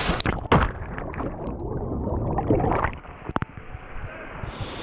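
Plunge into a waterfall pool after a natural rock water slide: rushing water and loud splashes near the start, then muffled, gurgling sound with the camera underwater, and two sharp knocks about three and a half seconds in. The full rushing-water sound returns just before the end.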